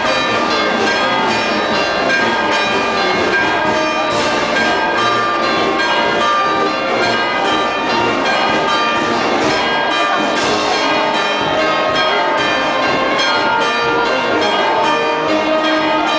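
Church bells pealing continuously, several bells ringing over one another.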